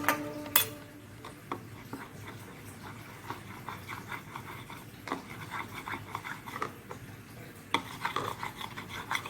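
Small handling noises: light rubbing and scraping with scattered soft clicks and taps, a sharper tap about half a second in and a busier run of taps near the end.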